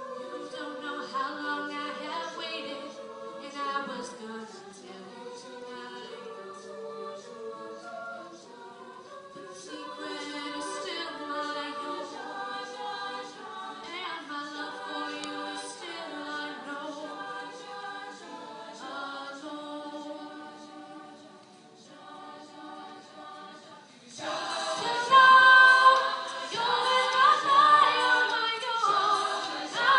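A cappella vocal group singing in harmony, with a light ticking beat. About 24 seconds in, the singing becomes suddenly much louder and fuller.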